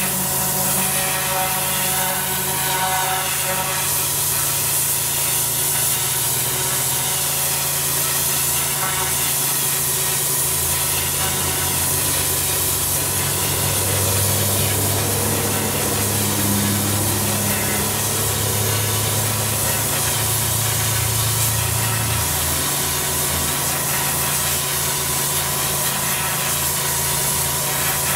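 Pressure washer turbo lance jet blasting moss and grime off block paving: a steady, hard water hiss against the blocks. The pressure washer's motor hums steadily underneath, getting heavier for a stretch in the middle.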